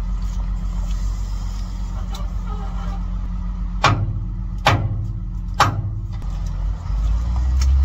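Heavy plant machinery running with a steady low engine hum. Midway there are three loud metal clanks about a second apart, each ringing briefly, and the engine revs up near the end.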